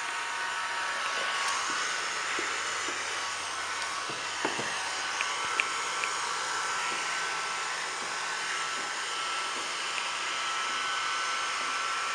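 Handheld electric heat gun running steadily, its fan and hot air blowing as it warms vinyl wrap to soften it, with a few light clicks near the middle.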